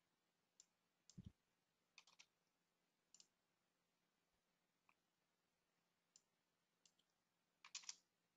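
Faint computer mouse clicks and keyboard keystrokes, short sharp clicks singly and in pairs about a second apart. The one about a second in carries a soft low thump.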